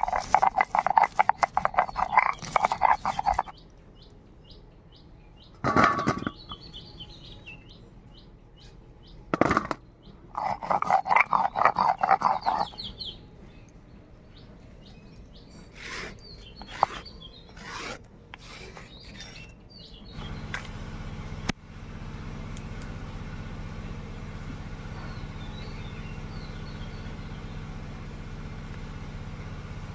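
Garlic being ground on a shil-nora: the stone roller is rocked over the flat grinding stone in quick rhythmic scraping strokes, in a burst at the start and again about ten seconds in, with a few single stone knocks between. A bird calls repeatedly in the quieter gaps, and a steady low hum sets in about two-thirds of the way through.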